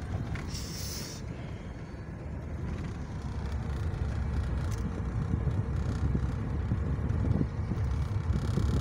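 Car cabin noise while driving: a steady low rumble of engine and tyres that grows gradually louder, with a short hiss about half a second in.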